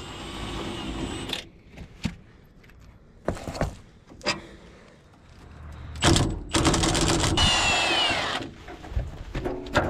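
A few scattered metal knocks, then a Milwaukee cordless impact gun runs for about two seconds, its pitch dropping near the end, as it drives the bolt of a new rear shock absorber into its mount.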